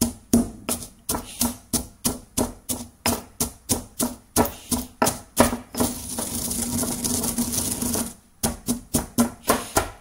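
Stone pestle pounding coffee beans in a stone mortar, about three sharp strikes a second. About six seconds in, the strikes give way to roughly two seconds of steady grinding as the pestle is worked round the bowl, then the pounding resumes. The beans are already mostly broken and are being crushed finer.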